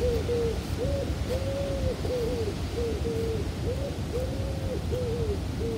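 Marker squeaking on a whiteboard as a line of maths is written: a quick series of about ten short, arched squeaks of one pitch, one for each pen stroke.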